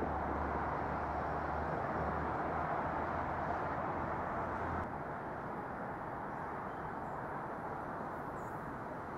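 Steady outdoor background noise with no distinct events. A low hum under it stops suddenly about five seconds in, and the noise then continues a little quieter.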